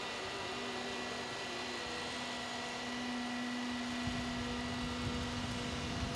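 Truck-mounted log loader's engine and hydraulics running steadily with a droning hum while the boom swings a log. A deeper rumble joins about four seconds in as the machine takes more load.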